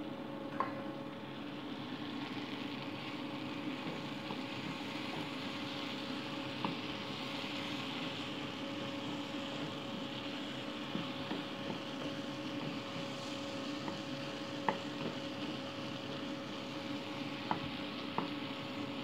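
Chopped tomatoes, onion and parsley sizzling in a frying pan while a spatula stirs them. There are a few sharp taps of the spatula against the pan, and a faint steady hum underneath.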